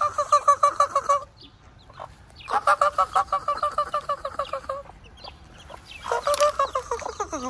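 A person calling chickens with a rapid, evenly repeated clucking call, about seven pulses a second at a steady pitch, in three runs of about two seconds with short breaks between.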